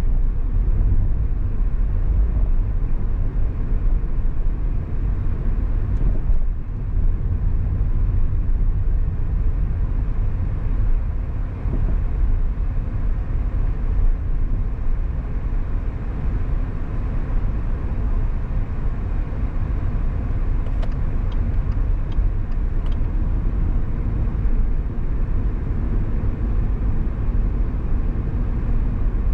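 A car driving along city streets, with a steady low rumble of engine and road noise. A few faint clicks come about three-quarters of the way through.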